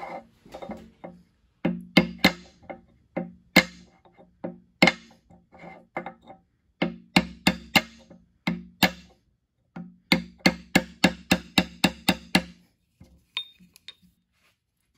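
Hammer blows on a brass pipe driving an oil seal into a steel hydraulic cylinder gland, each strike with a short low ring. Spaced blows come first, then a quick run of about ten strikes, then a few light taps near the end.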